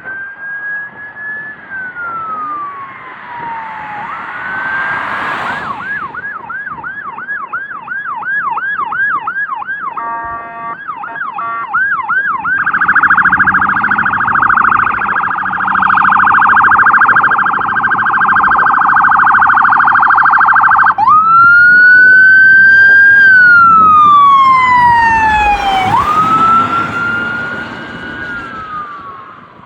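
Emergency-vehicle electronic sirens running through their tones: a slow rising and falling wail, then a yelp at about two cycles a second, then a very rapid warble, loudest in the middle. About two-thirds of the way through it switches back to a wail, which fades near the end as the vehicles move off.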